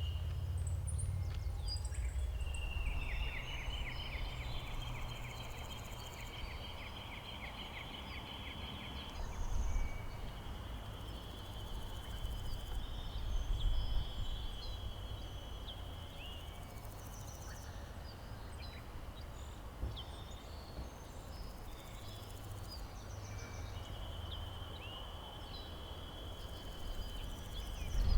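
Three long, steady, high buzzing trills, each lasting several seconds, from a calling animal, over a low outdoor rumble with faint scattered chirps.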